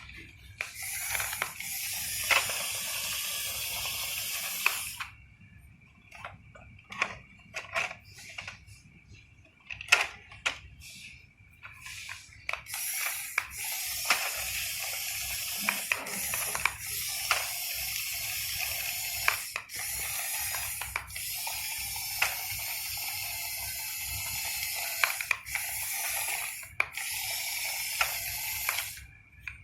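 Radio-controlled construction model's motors running in stretches of a few seconds, with a hissing noise that starts and stops sharply and scattered clicks between the stretches; a faint steady high whine runs underneath.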